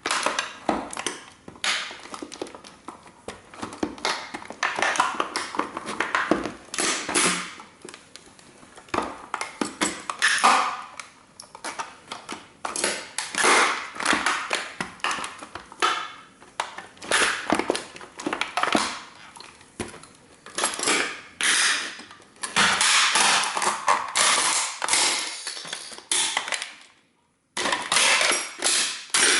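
A 1:18 scale model car being crushed under sneaker soles: repeated cracking, crunching and clattering of its body and small parts breaking, in uneven bursts.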